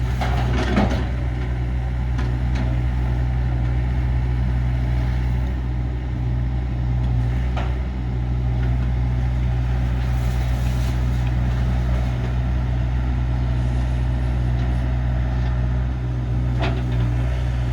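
Excavator's diesel engine running steadily under working load, with a few faint knocks and cracks of debris being broken apart.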